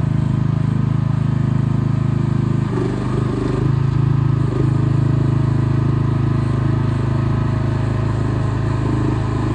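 The 420cc Briggs & Stratton gas engine of an AGT L12 mini excavator running steadily while the machine drives on its rubber tracks, its note wavering briefly about three seconds in.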